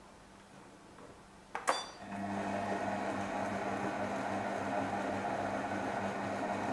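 Multifunction kitchen machine starting on a low stirring speed about two seconds in, after a short beep, then running steadily with a low motor hum as it stirs banana pieces into a cream-cheese filling.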